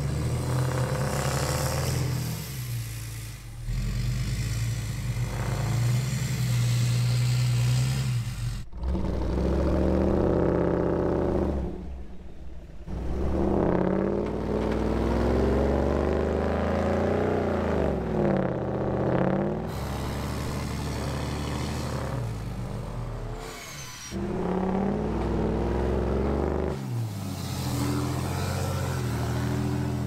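Vehicle engines revving hard during a kinetic-rope snow recovery: the off-road recovery rig and the stuck Dodge Ram pickup throttle up and down, their tires spinning in deep snow. The engine note rises and falls repeatedly, and changes abruptly several times.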